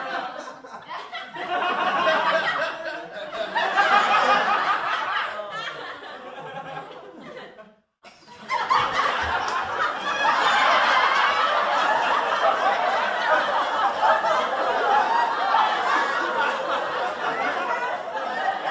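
Sitcom laugh track: a studio audience laughing. The laughter breaks off briefly about eight seconds in, then a second, fuller burst of crowd laughter starts.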